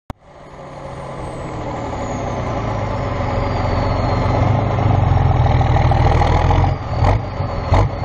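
A heavy vehicle's engine running steadily, fading in over the first few seconds, with a faint high whine gliding slowly downward; the sound dips briefly twice near the end.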